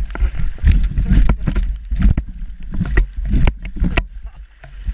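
Large rainbow trout thrashing in a landing net at the water's surface: a quick, irregular run of splashes and knocks over a steady low rumble.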